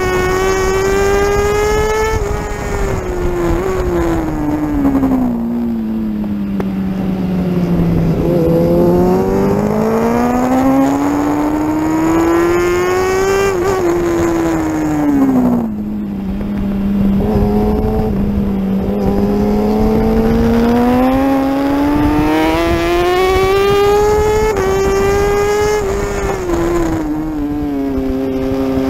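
Superbike engine at racing speed heard from onboard, its note climbing and falling in long sweeps as the rider accelerates, shifts and rolls off for corners, with a quick drop in pitch about halfway. Wind and road noise rush underneath.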